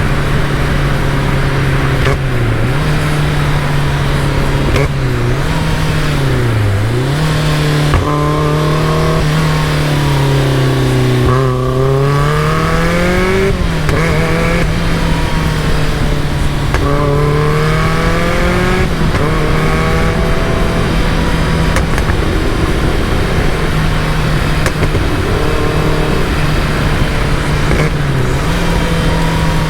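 Caterham Super Seven's engine running continuously at mostly steady revs, its note dipping and climbing back several times as the throttle eases and picks up again.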